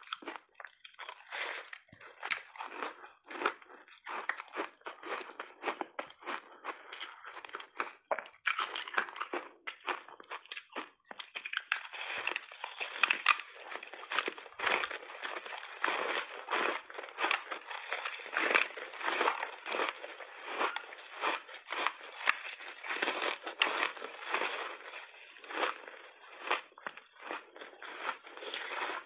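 Ice being bitten and chewed: a layered block of frozen mixed berries with matcha and milk powder crunching and crackling in a dense run of sharp cracks, growing thicker and louder from about eleven seconds in.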